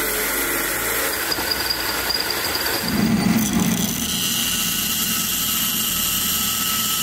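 Cordless drill boring a hole through aluminum angle stock; about three seconds in it gives way to a band saw running as the aluminum angle is pushed into its blade, with a steady high whine.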